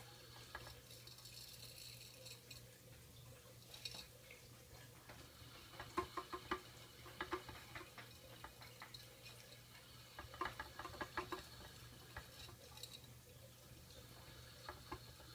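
Faint clicking and light rattling of a clear plastic hamster wheel as young hamsters scramble in and around it, busiest about six seconds in and again about ten seconds in, over a steady low hum.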